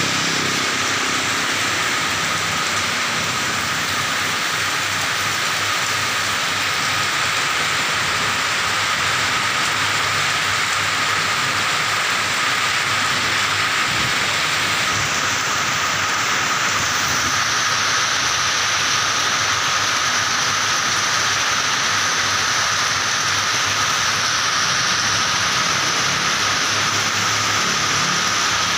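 Steady rain falling, an even hiss of drops, with a thin steady tone underneath.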